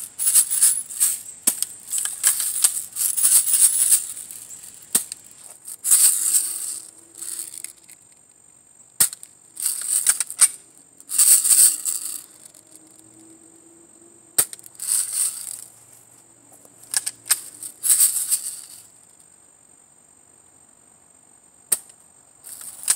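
Repeated bursts of shaken rattling, each about a second long with short gaps between, the rattle used to condition squirrels to leave the bird feeder. Three single sharp cracks of an air rifle firing fall among them.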